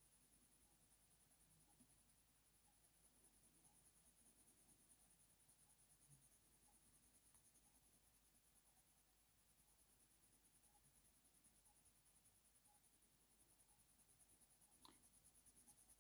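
Near silence, with the very faint scratching of a Faber-Castell Polychromos coloured pencil on hot-press watercolour paper. There are scattered soft strokes and a slightly stronger little click near the end.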